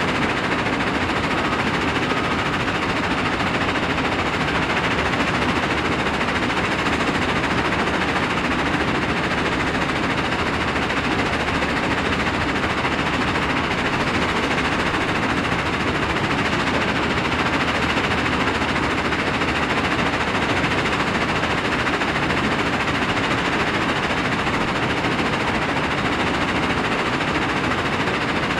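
Mobile rock crushing and screening plant running, with a continuous dense rattle of crushed rock tumbling over the vibrating screen decks and pouring off the conveyors.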